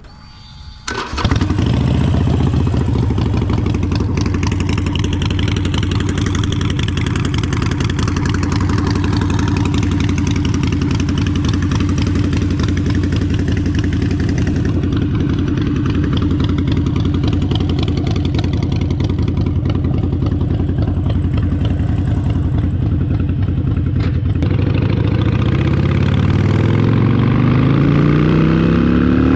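Harley-Davidson Sportster 883 V-twin with Short Shots exhaust fired up about a second in and left idling with its uneven lope, then revving up steadily as the bike pulls away near the end.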